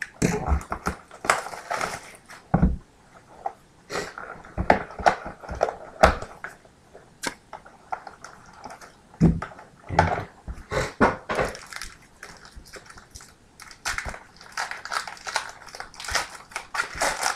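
Hands opening a sealed cardboard trading-card box and the foil-wrapped pack inside: irregular crinkling and rustling of wrapper and cardboard, with scattered sharper crackles and clicks.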